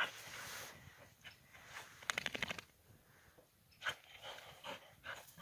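A dog moving through deep snow with a rubber ball in its mouth: snow crunching and the dog biting and mouthing the ball, with a quick run of clicks about two seconds in.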